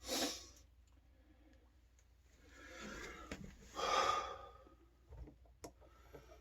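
A person breathing out heavily twice, a short breath at the start and a longer one in the middle, followed by a few light clicks near the end.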